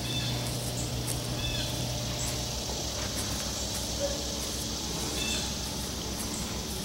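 A small boat's motor running steadily at low speed, its hum changing about two and a half seconds in, with a bird chirping briefly a few times.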